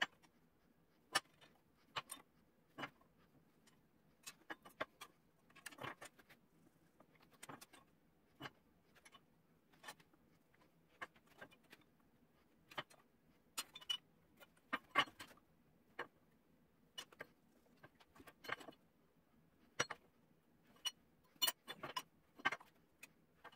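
Scattered light clinks and taps of steel on steel as a framing square and a cut piece of thick angle iron are handled and set against each other on a steel bench top, about one or two sharp knocks a second at irregular intervals.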